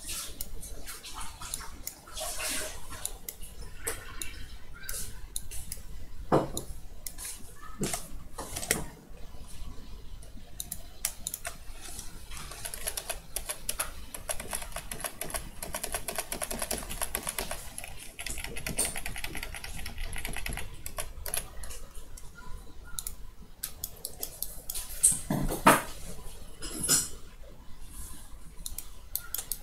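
Computer keyboard clicking and clattering irregularly as it is typed on, with a few louder clicks near the end.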